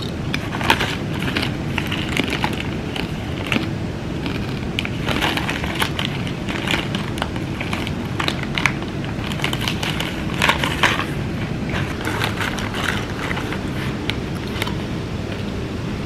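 Foil-lined snack bag of dried apple chips crinkling and rustling as it is handled and a hand reaches in, with crunching of the crisp chips. Irregular sharp crackles over a steady low hum.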